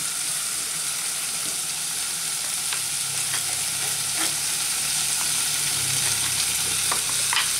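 Open wood fire burning: a steady hiss with a handful of sharp crackles and pops.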